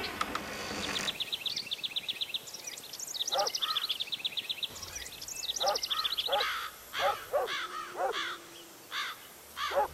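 Birds calling: a fast, high trill, then a run of short, harsh calls about twice a second.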